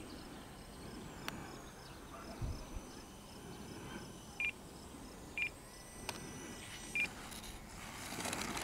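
Faint high whine of an RC A-10's twin 50 mm electric ducted fans, dropping in pitch as the throttle comes back on the landing approach. Three short electronic beeps sound in the middle. Near the end the model's wheels clatter as it touches down and rolls on the asphalt strip.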